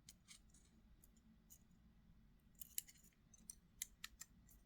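Faint small clicks and ticks of a Kizer Hyper folding knife's parts being fitted together by hand as the handle scale is lined up on the pivot, with a cluster of sharper clicks in the second half.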